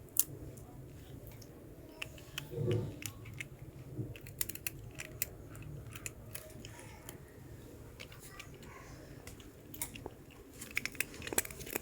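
A cat chewing and crunching murukku, a hard fried rice-flour snack, in irregular sharp crunches that come thicker near the end.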